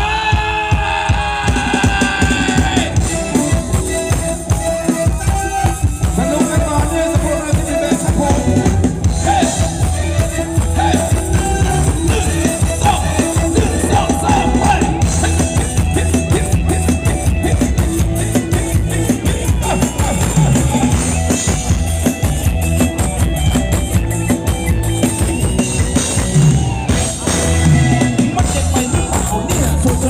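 Live band playing Thai ramwong (Phetchaburi circle-dance) music, loud, with a steady drum-kit beat.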